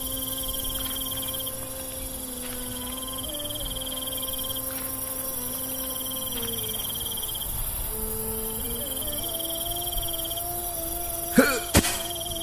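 Crickets chirping in repeated pulsing trills, over a low sustained music drone whose notes shift slowly. Near the end come two sharp knocks in quick succession.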